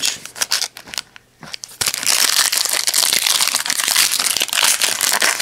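Metallic foil wrapper of a 2016-17 Panini Prestige basketball card pack crinkling as it is opened by hand: a few light crackles at first, then continuous loud crinkling from about two seconds in.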